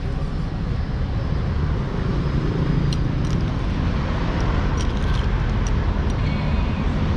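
Steady street traffic noise: a constant low rumble of passing vehicles, with a few faint clicks.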